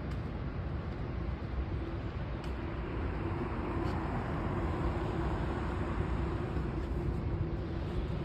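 Steady outdoor noise, mostly a low rumble of wind buffeting a phone microphone, with a faint steady hum that swells in the middle and fades again.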